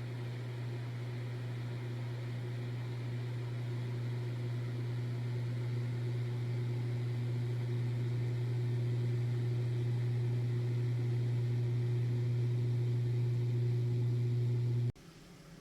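Electric kitchen appliance humming steadily, then cutting off abruptly near the end.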